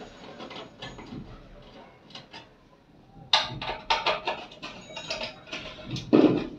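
Screwdriver backing screws out of the side of a laminator's metal casing: faint scraping at first, then a busy run of small metallic clicks and scrapes from about three seconds in, with a brief low sound near the end.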